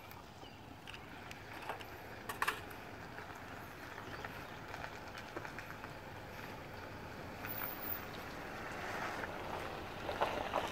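Faint steady outdoor background noise with a few light clicks and taps, swelling a little in the last few seconds.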